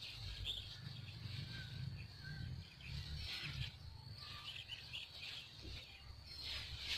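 Small birds chirping in short bursts, several times, over a steady low rumble.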